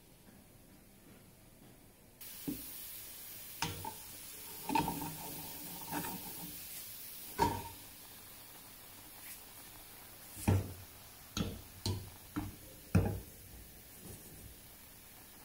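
Oats boiling in a metal pot on a gas stove: a steady hiss of bubbling sets in about two seconds in. Scattered sharp knocks and clinks of a utensil against the pot run through it.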